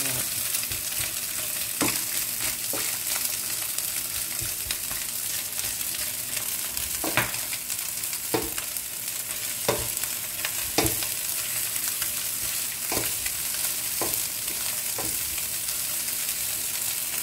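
Cold cooked rice and fried egg sizzling steadily as they are stir-fried in a frying pan, with irregular knocks and scrapes of a wooden spatula against the pan every second or two.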